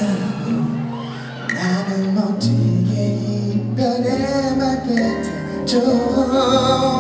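Live pop music: a man singing into a microphone over band accompaniment in a large hall.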